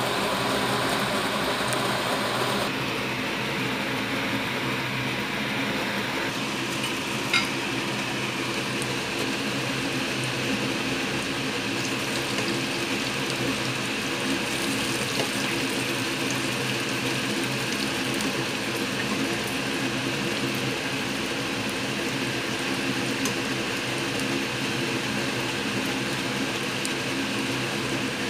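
Batter fritters frying in hot oil in a pan, a steady sizzle, over a steady low hum. A single sharp click about seven seconds in.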